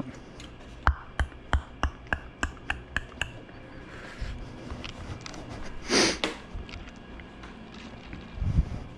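A rapid run of about nine sharp clicks and knocks, over roughly two seconds, as a motorcycle's rear fender is wiggled and slid out of its mount. About six seconds in, a short rushing noise.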